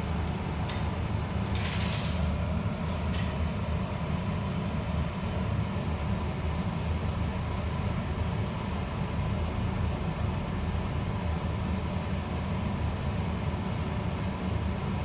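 Pot of barley water with pandan and red bamboo leaves at a rolling boil: a steady low rumble of bubbling, with a brief hiss about two seconds in.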